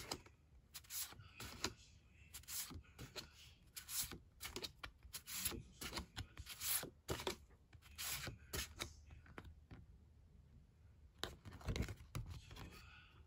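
Stiff paper photo postcards being flipped one by one, each card sliding off the stack with a short papery swish, about once a second. After a brief lull near the end comes a louder rustle with a low bump as sheet-mask packs are handled.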